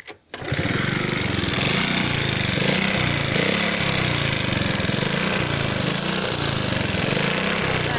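Small single-cylinder four-stroke moped engine running with a loud, rattling clatter. It comes in abruptly about half a second in and rises and falls roughly once a second. The knock began after the engine was run with the oil at minimum, and the owner suspects the piston hitting a valve or a broken clutch basket.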